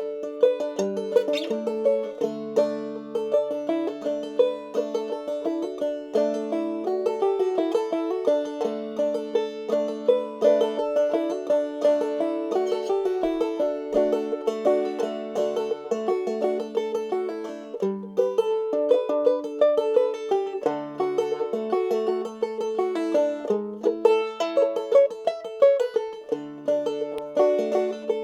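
Clawhammer banjo in double D tuning playing a fiddle tune at a steady, brisk pace: quick plucked melody notes over a ringing drone string.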